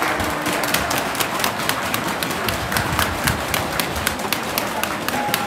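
Spectators in the stands clapping, many sharp claps a second close to the microphone over a steady murmur of crowd noise.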